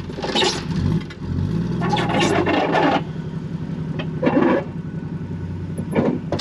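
Tow vehicle's engine pulling forward under load to drag a boat trailer out of a muddy creek bed, revving up about a second in and easing off near three seconds, with several short noisy bursts.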